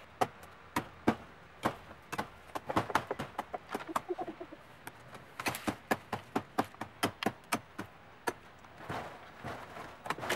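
Irregular sharp knocks and taps, often two or three a second, from a climber's hands and bare feet against a palmyra palm's trunk and dry leaf stalks.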